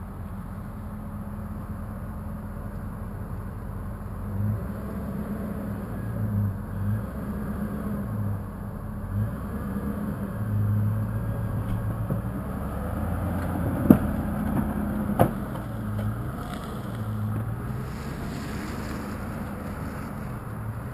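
Land Rover Discovery II's engine running under load and revving in short repeated bursts as the 4x4 crawls up a steep, rutted dirt slope. Two sharp knocks come a little past halfway, about a second apart.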